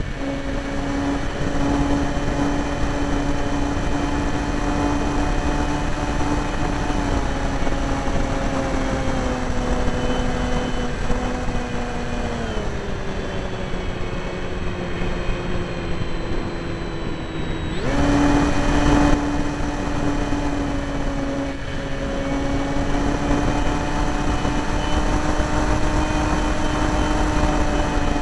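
Electric motor and propeller of a radio-control Me-163 Komet model plane whining steadily, heard from a camera riding on the plane with air rushing past. The pitch drops in steps as it is throttled back about halfway through, then jumps back up at about two-thirds of the way with a brief rush of air, and holds steady.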